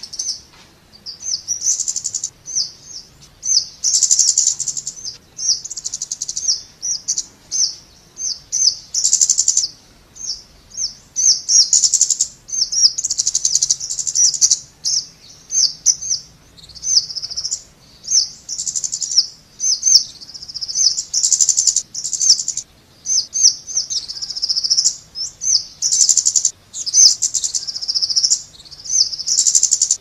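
Scarlet-backed flowerpecker calling: rapid runs of very high, thin chirping notes in short bursts, one after another with brief gaps.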